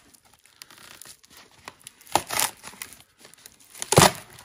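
Clear plastic wrap on a cardboard box being cut and pulled open by hand, crinkling and tearing in short bursts, the loudest about four seconds in.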